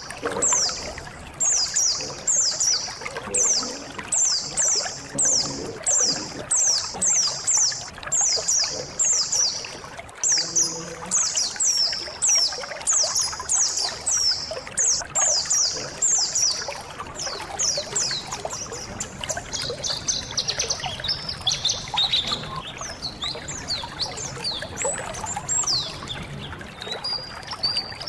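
Pleci (white-eyes) calling in a group: a rapid run of high-pitched, downward-sweeping chirps, several a second, that grows denser and more jumbled in the second half. Trickling water runs underneath.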